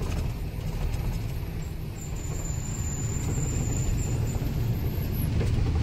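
Diesel truck engine running under way, a steady low rumble heard from the cab.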